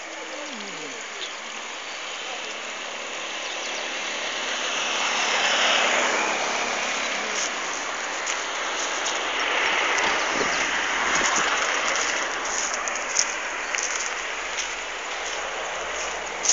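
Road traffic passing close by: a steady hiss of tyres and engines that swells and fades as vehicles go past, loudest about six and ten seconds in, with a few sharp clicks in the second half.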